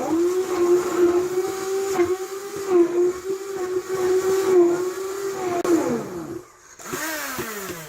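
Immersion (wand) blender frothing coffee with cream, its motor running at a steady pitch after a brief dip at the start. It winds down about six seconds in, then runs briefly once more and winds down again near the end.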